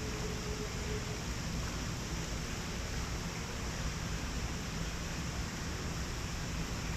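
Steady rushing noise with a low hum underneath, unchanging throughout; a faint steady tone fades out about a second in.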